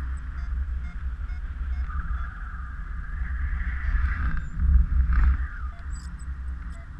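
Wind rushing over the camera's microphone in paraglider flight: a constant low buffeting rumble under a steady hiss that swells about two seconds in and again briefly about five seconds in.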